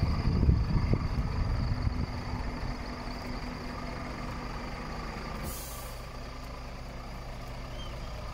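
A Scania R450's 13-litre straight-six diesel idling steadily, with louder low rumbling noise over the first two seconds. About five and a half seconds in, the truck's compressed-air system lets out one short hiss.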